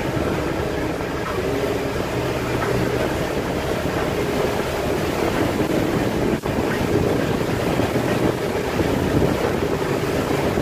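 Motorboat engine running steadily under way, with water rushing past the hull and wind buffeting the microphone.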